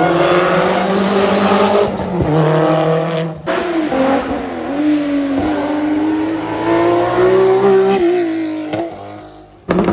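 Historic rally car engine at high revs on a stage, its pitch climbing and dropping as it accelerates and shifts gear. The sound breaks off sharply about three and a half seconds in, then the engine pulls away and fades near the end.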